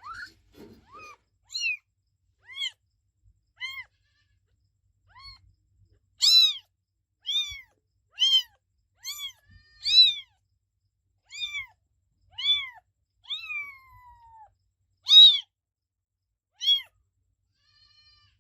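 A kitten meowing over and over: short, high-pitched meows about one a second. One longer meow slides down in pitch about two-thirds of the way through.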